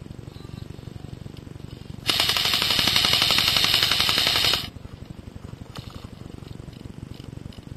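Airsoft electric gun (AEG), a CYMA AK74, firing one full-auto burst of about two and a half seconds, a very fast steady rattle that starts about two seconds in and stops sharply. A low rumble runs underneath throughout.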